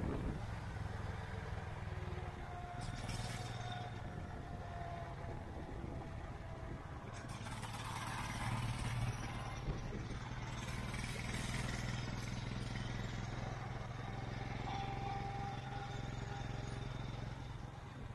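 Motorcycle engine running steadily while riding, with wind noise buffeting the microphone that grows louder for a few seconds in the middle.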